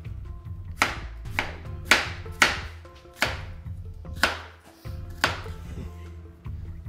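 Chef's knife chopping an onion on a plastic cutting board: about seven separate strokes at an uneven pace, stopping about five seconds in. Background music plays underneath.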